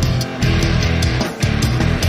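Loud hard-rock intro music with electric guitar and a driving beat.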